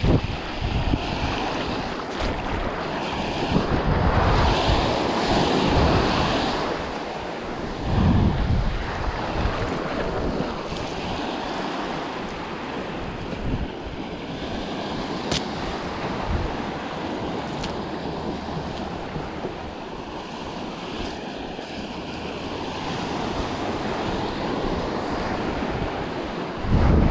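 Small surf washing up on a sandy beach, with wind buffeting the microphone in uneven low gusts.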